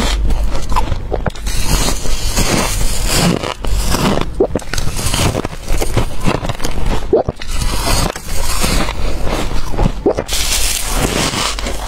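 Freezer frost crunching between the teeth: a string of big bites and chews, one burst every second or two with short breaks between them.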